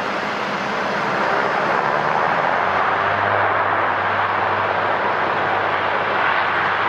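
Dash 8 Q400 turboprop airliner's two engines and propellers running as it moves along the runway: a steady, loud whooshing drone that swells slightly, with a low steady hum joining about three seconds in.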